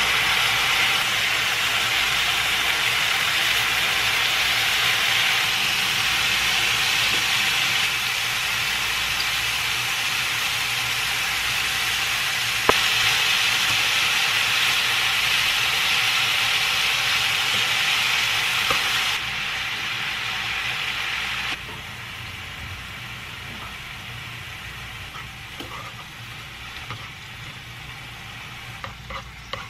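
Beef bulgogi and bean sprouts sizzling hard in a hot non-stick wok while being stir-fried with wooden chopsticks. About two-thirds of the way through, the sizzle drops to a much quieter frying hiss, with a few light clicks near the end.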